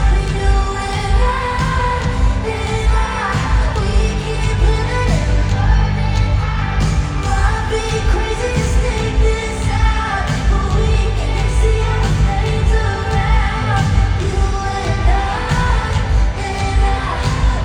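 Pop song performed live: a female singer's vocal over full musical backing with heavy bass.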